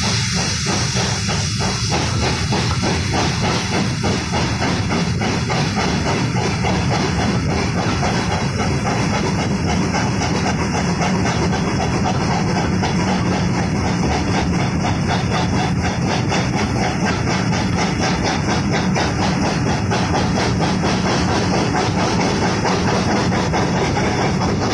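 Two GWR Manor class 4-6-0 steam locomotives working hard at the head of a moving train, heard from a coach window. A quick, even beat of exhaust chuffs runs over the steady rush and clatter of the coaches on the rails.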